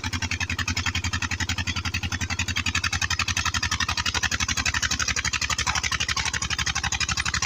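Diesel engine of an old tubewell running steadily with a fast, even beat.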